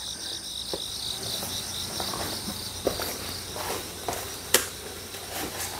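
Insects chirping in a steady, evenly pulsing high drone, with a few faint taps and one sharp click about four and a half seconds in.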